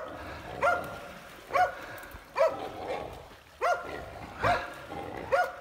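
A hog dog barking at a regular pace, about one bark a second, baying at a boar it has cornered.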